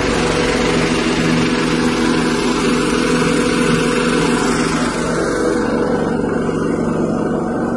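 A 6.5 hp petrol engine driving a rice-husk grinding mill, running steadily under a loud hiss from the mill. The high hiss drops away about five and a half seconds in, leaving the engine's steady hum.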